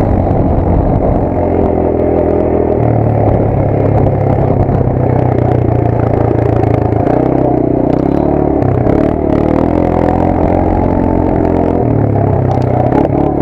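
Small vehicle engine running under way on a gravel road, its pitch shifting up and down several times as it speeds up and slows, over steady rattling and road noise.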